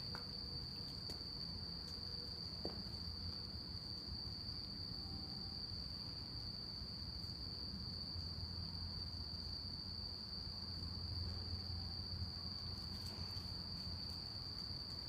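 Night insects singing: a steady, high-pitched chorus that carries on unbroken, over a low background hum.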